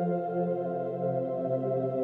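Ambient background music of sustained chords; the bass note steps down to a lower chord just after the start.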